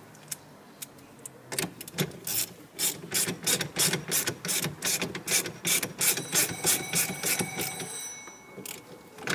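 Ratchet wrench tightening the 21 mm steering-shaft nut on a boss hub, clicking in quick strokes of about three a second, starting about a second and a half in and stopping about a second before the end.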